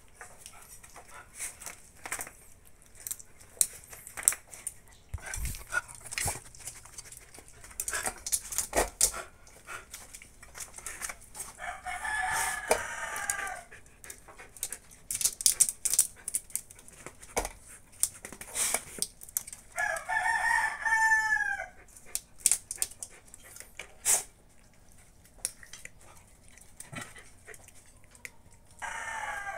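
A rooster crowing twice, each crow about a second and a half long with falling arcs of pitch, and a third call starting near the end. Scattered sharp clicks and knocks sound throughout.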